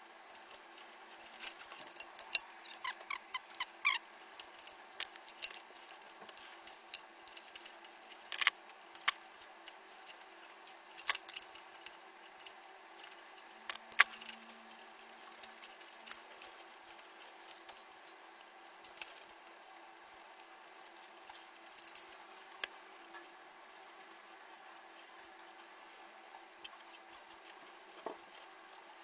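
Scattered small clicks, taps and light rattles of computer parts being handled and fitted during a PC build. The sharpest clicks come about two, eight and fourteen seconds in, and they grow sparser and quieter toward the end.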